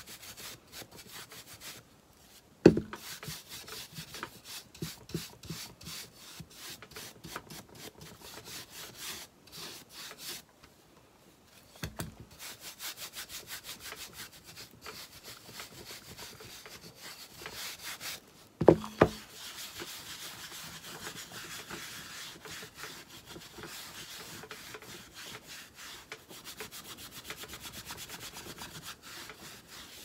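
A brush scrubbing wax onto a painted wooden block in fast, rhythmic strokes, darkening and sealing the paint. A couple of sharp wooden knocks stand out, about three seconds in and just past the middle, with short pauses in the scrubbing.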